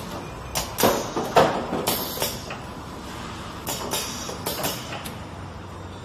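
Automatic rotary cartoning machine running: irregular groups of short, sharp mechanical clacks, several in the first two seconds and another run about four to five seconds in, over a steady low machine hum.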